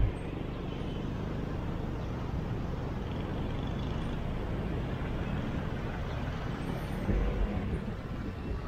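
Steady motor-vehicle running noise, a low rumble, with a low bump about seven seconds in.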